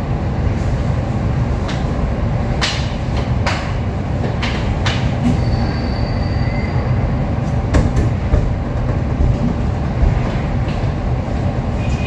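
A steady, loud low rumble, with a few light clicks scattered through it.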